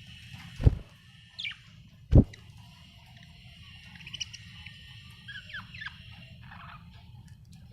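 Budgerigar giving short, scattered chirps, with two loud dull thumps about a second and a half apart near the start.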